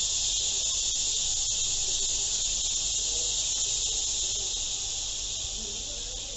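A steady insect chorus, crickets or cicadas, making a dense high-pitched buzzing hiss that eases off a little near the end.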